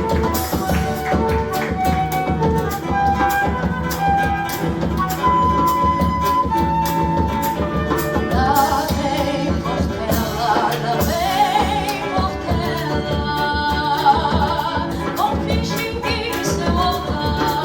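A samba played by a small acoustic group of flute, guitar and hand percussion, over a steady beat. The melody moves in long held notes, then in wavering notes from about eight seconds in.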